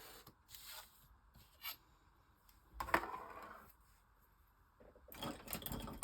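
Scattered handling sounds of paper and craft tools on a work table: soft scrapes and rustles, a sharper knock about three seconds in, and a run of scraping near the end.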